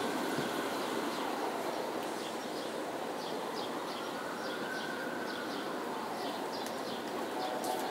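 Steady city hum of distant traffic, with small birds chirping in short repeated notes from a couple of seconds in.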